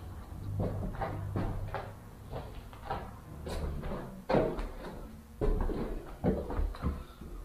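Irregular knocks, bumps and scuffs, the sharpest about halfway through and a second later, over a low handling rumble: footsteps and movement through a bare, debris-strewn room.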